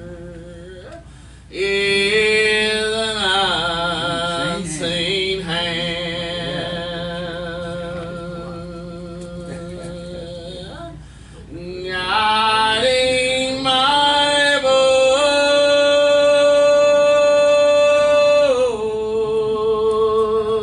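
Voices singing a slow gospel hymn, drawing out the words into long notes with vibrato; about twelve seconds in they hold one long note for around six seconds.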